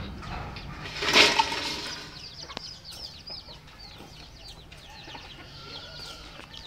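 Chickens: one loud squawk about a second in, followed by many short, high chirps and peeps.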